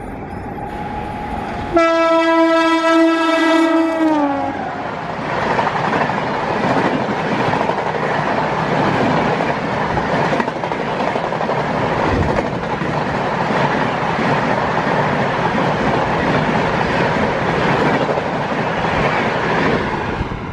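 Indian Railways electric train sounding its horn once, a loud two-and-a-half-second blast whose pitch drops as it ends. The train then rushes past with a steady loud rumble of wheels running on the rails.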